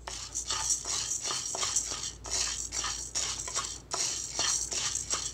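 A wooden spoon stirring dry urad dal as it dry-roasts in a nonstick kadai: the lentils rattle and scrape against the pan in quick, repeated strokes, about three a second.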